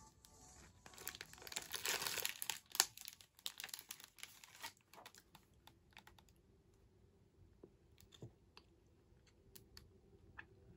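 Crinkling and crackling of a plastic snack-cake wrapper and clear plastic clamshell tray being handled for the first three seconds or so, then much quieter, with scattered faint clicks while the cake is eaten.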